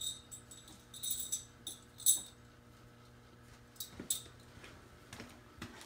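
Steel roller-lifter guides ('dog bones') for a 7.3 IDI diesel clinking and jingling together in the hands as they are gathered up. There are several separate metallic rattles, the sharpest about two seconds in.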